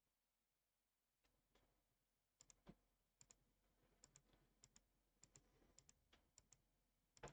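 Faint computer mouse clicking: a few soft clicks, then from about two and a half seconds in a run of about eight sharp paired clicks at irregular intervals.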